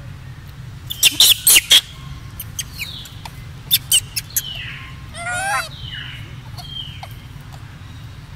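Animal chirps and squeaks: four sharp high chirps about a second in, two more near the middle, then a short wavering squeal, with a few faint falling whistles between them.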